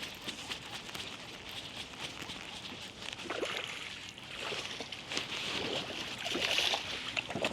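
Water sloshing and splashing beside a kayak, with small knocks and rustles, swelling a little about a third of the way in and again near the end.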